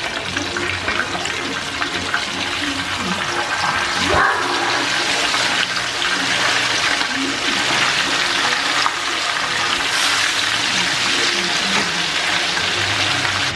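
Whole fish shallow-frying in hot oil in a nonstick frying pan: a loud, steady sizzle of bubbling oil.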